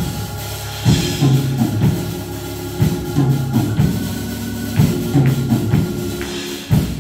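Live church band playing an instrumental groove: drum kit and tambourine over repeating low sustained chords, with a heavy drum hit about every two seconds.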